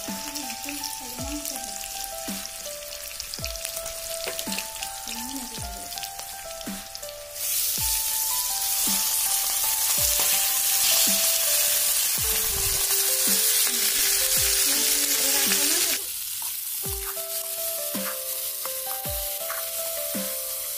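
Sliced onions sizzling in hot oil in a wok; about seven seconds in, raw pork pieces are tipped in and stirred with a ladle, and the sizzle jumps to a loud hiss that drops back to a quieter frying sound abruptly about sixteen seconds in. Background music plays throughout.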